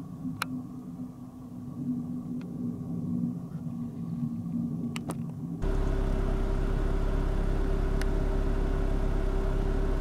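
A quiet low hum with a few faint clicks. About halfway through it cuts abruptly to a louder, steady vehicle drone: engine and road rumble with a constant hum, as heard while driving.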